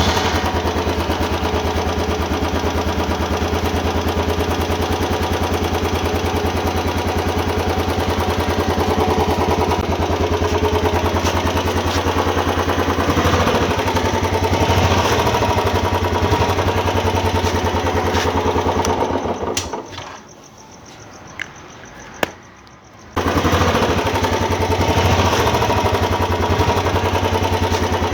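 Royal Enfield Bullet 350's single-cylinder engine running on its stock exhaust with a steady, even thump. About twenty seconds in the sound dies away for roughly three seconds, then comes back abruptly.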